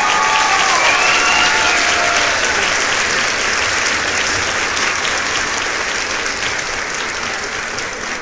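A crowd applauding and cheering, with voices whooping in the first two seconds or so, then fading slowly.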